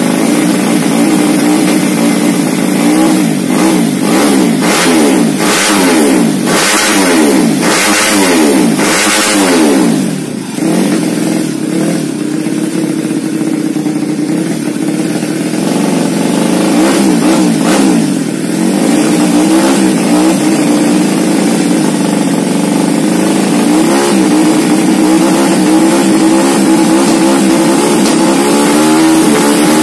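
Single-cylinder four-stroke Jupiter 130cc motorcycle engine running while its idle is being set, blipped up and down about once a second for several seconds, then settling to steadier running near the middle with a few more brief blips.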